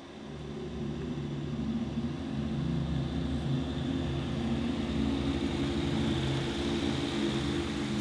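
A car's engine running with a steady low hum. It grows louder over the first two or three seconds as the car approaches, then holds steady.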